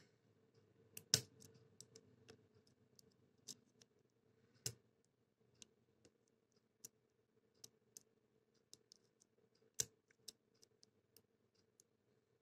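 Faint, scattered metallic clicks and ticks of a hook pick working the pin tumblers of a CITY ISEO 60 mm padlock under light tension, with louder clicks about a second in, midway and near the end.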